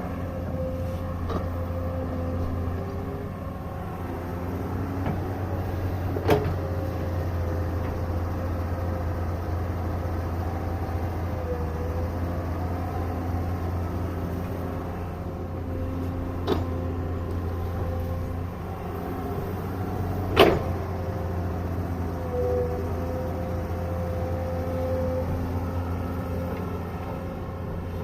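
Excavator's diesel engine running steadily, with a wavering whine over its low drone and three sharp knocks, the loudest about twenty seconds in.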